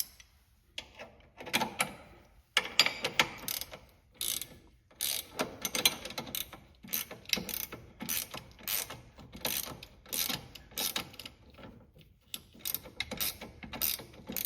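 Ratchet wrench clicking through repeated short strokes, tightening the bolt of a bushing press tool that draws a steering rack bushing into the rack.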